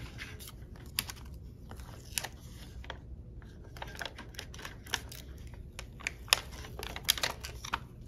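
Paper adhesive labels being peeled off their backing liner and the label strip handled, making irregular small crackles, clicks and paper rustles, a few of them sharper.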